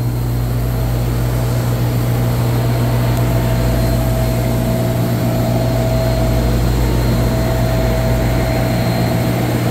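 Fieldpiece refrigerant recovery machine running, pumping refrigerant into a recovery cylinder: a loud steady hum with a thin steady tone above it.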